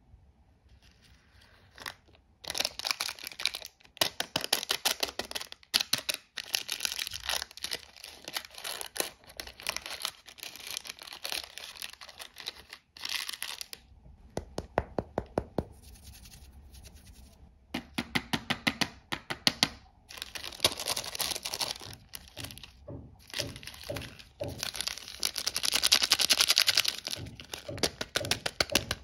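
Plastic candy wrappers crinkling and tearing under the fingers: a Chupa Chups lollipop's wrapper is opened and peeled off, then a Twix bar's foil-lined wrapper is handled. The crackling starts about two seconds in, comes in runs with short pauses, and is loudest near the end.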